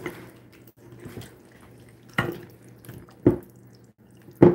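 A spoon stirring thick turkey-and-gravy pot pie filling in a glass mixing bowl: wet squishing, with three sharp knocks of the spoon against the bowl, the loudest near the end.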